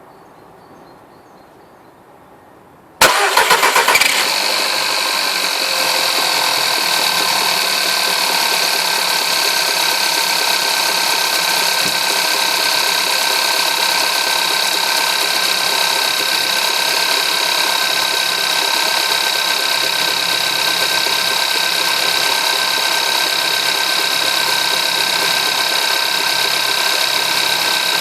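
Skoda Yeti's 1.2 TSI turbocharged four-cylinder petrol engine cranked and catching about three seconds in, then running at a steady cold idle. The owner hears something knocking in the engine when it is cold.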